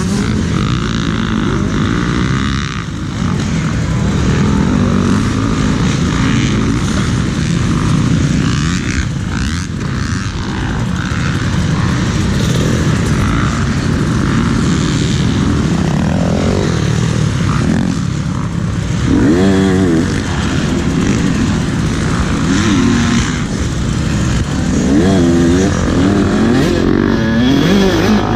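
Motocross dirt bike engine running hard and revving up and down repeatedly, its pitch rising and falling several times in the second half.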